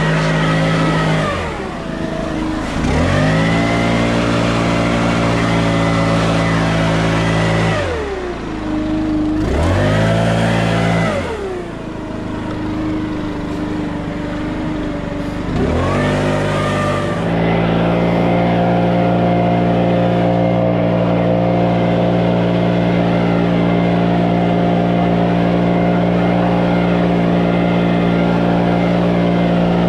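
An engine running, its pitch dropping sharply and climbing back about four times, then holding steady for the rest of the time.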